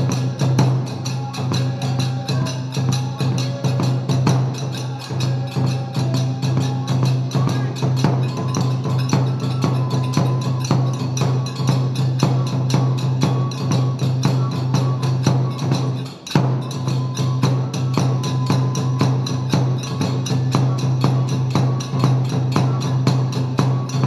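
Kagura music: a fast, even beat of drum and small hand cymbals with a flute melody over it, with a brief break about two-thirds of the way through.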